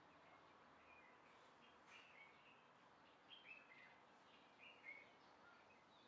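Faint, scattered short chirps of American robins, with a few louder calls in the second half, over a faint hiss.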